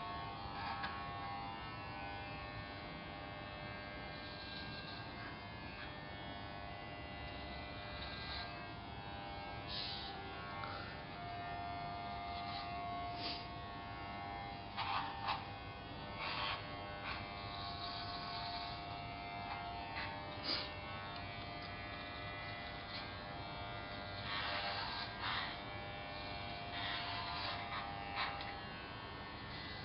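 Corded electric hair clippers buzzing steadily as they shave a head close, with brief louder bursts several times.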